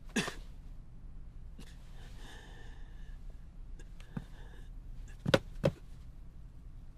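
A man coughing and breathing hard: a sharp cough at the very start, a long breath about two seconds in, a short cough near four seconds, then two loud coughs in quick succession just after five seconds.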